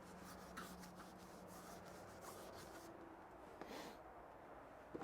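Faint rubbing and wiping strokes as the inside of an alloy wheel is cleaned to prepare the surface for stick-on balance weights.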